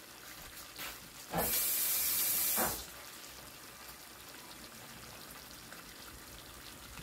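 Pot of fish simmering on the stove with a faint steady sizzle. About a second and a half in, a loud hiss lasts just over a second, then stops.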